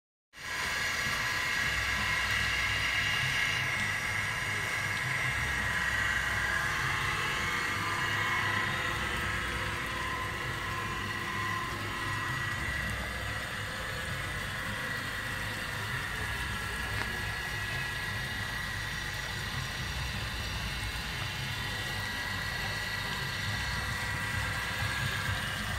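Steady mechanical hum with a high whine in it, with low rumbles that come and go.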